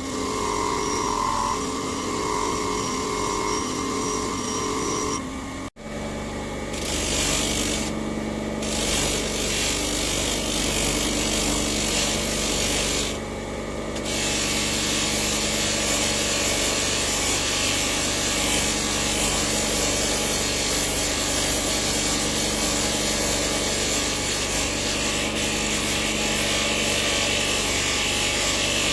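A power tool running steadily against material while a lever for a hydraulic jack is being shaped, with a sharp break about six seconds in where the sound cuts and resumes.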